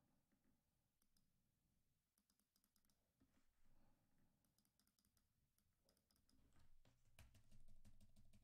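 Near silence with faint typing on a computer keyboard: scattered keystrokes that come quicker and louder toward the end, over a low hum.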